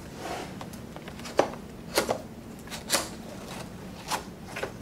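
Flat cardboard product box being pried open by hand: light rustling with about five sharp taps and knocks of cardboard against the table, the loudest about a second and a half in.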